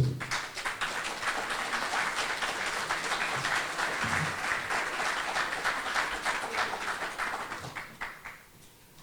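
Crowd applauding with many hands clapping, sustained for about eight seconds and then dying away near the end.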